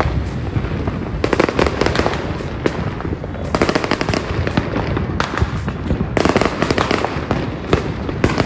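Fireworks going off, many at once: a continuous crackle of rapid pops that thickens into denser volleys several times and eases in between.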